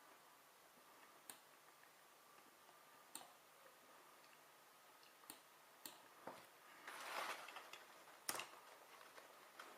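Near silence broken by a handful of sharp, irregular clicks, with a brief rustle about seven seconds in.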